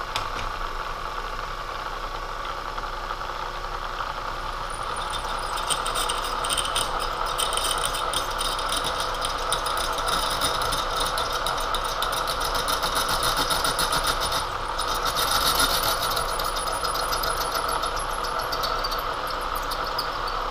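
Milling machine spindle running with a drill bit cutting into a broken steel bolt stuck in a cast iron part. About four seconds in, a scratchy, chattering cutting noise joins the steady motor hum; it breaks off briefly about three quarters of the way through and then resumes.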